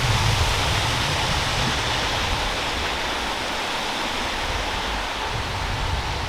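Waterfall rushing: a steady roar of falling water with a low rumble beneath, growing slightly fainter over a few seconds.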